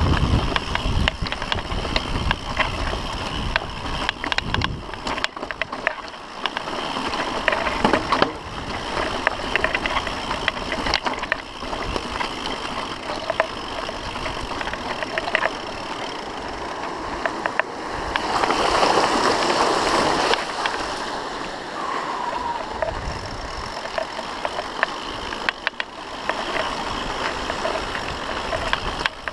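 Mountain bike ridden fast down a rocky trail: a steady rush of noise with many sharp rattles and knocks as the wheels and frame clatter over loose stones. The noise grows louder for a couple of seconds about two-thirds of the way through.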